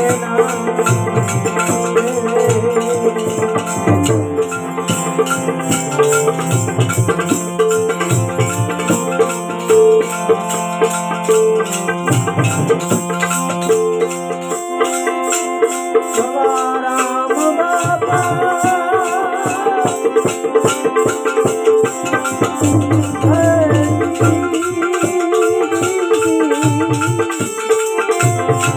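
Instrumental interlude of a Gujarati devotional bhajan: steady held melody tones over a fast, even jingling rhythm from small hand percussion, with a hand drum that drops out about halfway and comes back, and a wavering melody line entering later on.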